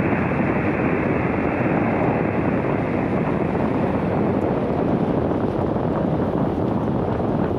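Steady hiss of an ICOM IC-705 transceiver's receiver on the 20 m band: empty band noise with no station coming through, cut off sharply at the top like a single-sideband voice channel.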